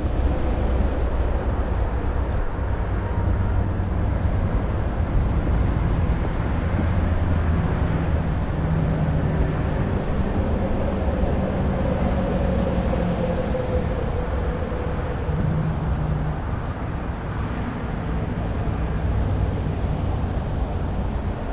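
Steady low rumble of a passing vehicle, with engine drones that come and go and a faint whine gliding down about halfway through.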